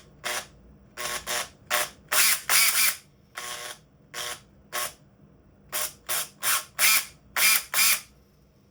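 Makita 18V cordless drill's motor run in about fourteen short trigger bursts, each spinning up briefly and stopping, with the back of the housing still off as it is tested after repair.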